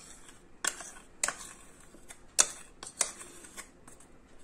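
A steel spoon clicking and scraping against a bowl and the rim of a steel mixer jar while condensed milk is spooned out: about five sharp, separate taps spread over a few seconds.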